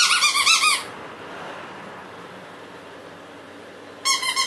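Squeaker toy squeezed in quick runs of high-pitched squeaks, about a second at the start and again near the end.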